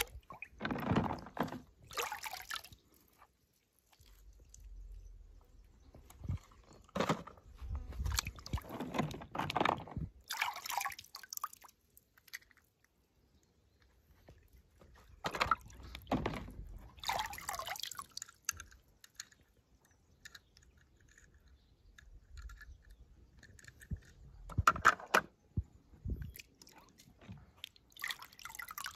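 Water splashing, sloshing and dripping in irregular bursts as toy cars are dropped into and moved through a pool of water.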